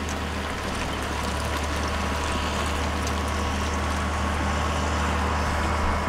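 Caterpillar motor grader's diesel engine running with a steady drone as the machine drags its ripper through stony, dusty soil, with a steady hiss of churned ground over it.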